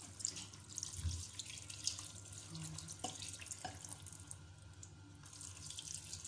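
Water poured from a glass jug into a stainless steel pot of cabbage rolls sitting in tomato juice, splashing steadily into the liquid.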